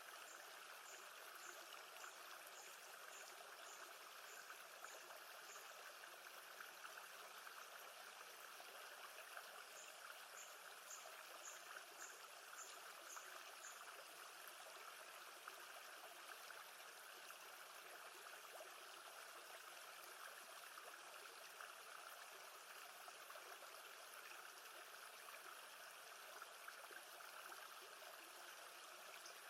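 Faint, steady rush of lake water moving gently, with no breaks or changes. A high, short chirp repeats about twice a second in two runs in the first half.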